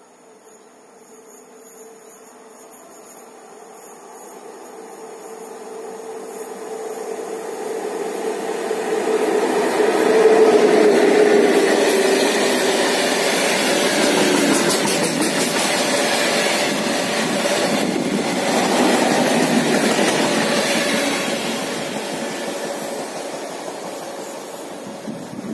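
An electric freight locomotive approaches with a steady hum that grows louder and passes close about ten seconds in. A long train of tank wagons then rolls past with a dense rumbling clatter of wheels on rail, fading toward the end.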